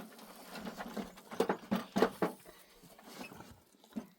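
A string of irregular knocks and taps, the loudest bunched together in the middle.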